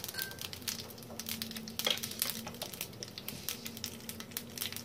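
Mustard seeds crackling in hot oil with cumin seeds, cloves and a cinnamon stick in a frying pan: a frying sizzle with many small irregular pops. The crackling of the mustard seeds is the cue that the tempering (baghaar) is ready.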